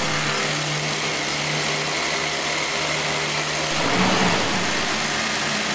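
Small motor running steadily as the toy tractor's screw auger turns into the sand: an even hum with a faint high whine above it.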